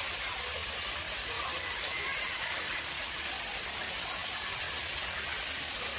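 Water flowing and splashing steadily in an artificial pond: an even, unbroken rushing.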